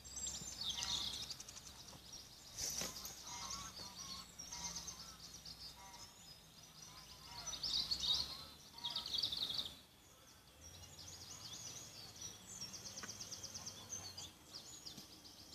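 Songbirds singing: many short, high chirps and rapid trills overlapping.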